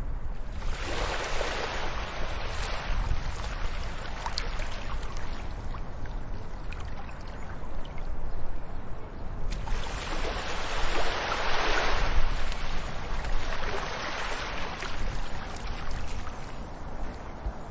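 Ocean waves surging and receding, with a big swell rising about a second in, another around ten seconds in and a smaller one just after, over a steady low rumble.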